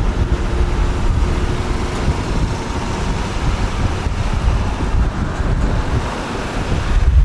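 Road traffic heard from a moving motorbike: steady engine and road rumble with wind buffeting the microphone.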